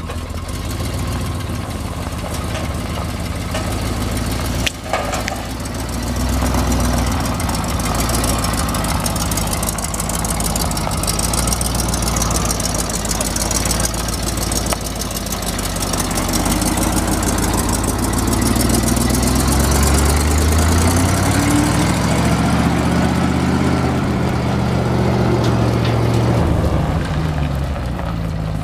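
1980 Chevrolet grain truck's gasoline V8 idling, then revving as the truck drives off: the engine note climbs from about halfway through, drops, and climbs again before easing near the end.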